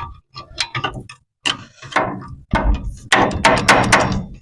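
Hand wrench on a tight, thread-locked brake caliper bolt, clicking and clanking in quick uneven bunches as the freshly broken-loose bolt is turned; the clicking is densest and loudest about three seconds in.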